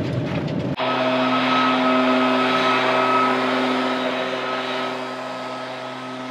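Leaf blower engine running steadily, a droning motor with a steady whine, growing fainter over the last couple of seconds. For the first moment, before it starts, there is road noise from inside a moving van.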